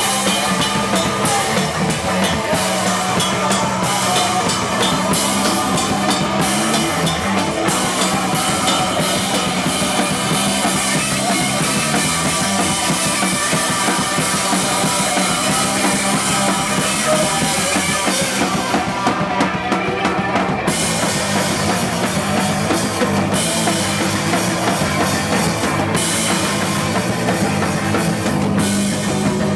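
Live rock band playing, with a full drum kit driving it.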